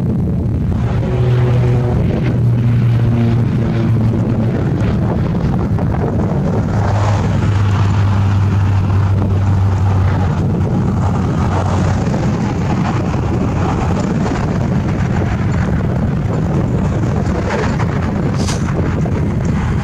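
Wind buffeting the microphone, with the low, steady hum of a vehicle engine in the first half, which fades out about two-thirds of the way through.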